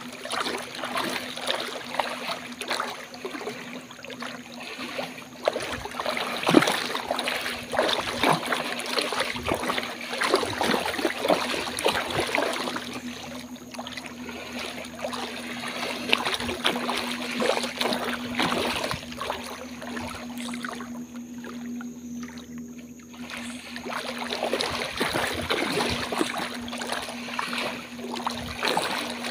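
Wading through shallow flood water by an orangutan and the person following it: continuous irregular sloshing and splashing of legs moving through the water, easing for a couple of seconds about two-thirds in. A steady low hum runs underneath.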